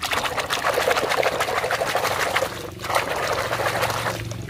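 Muddy water splashing and sloshing in a tub as a hand rapidly swishes and scrubs a toy motorcycle under the surface, with a brief pause just before three seconds in.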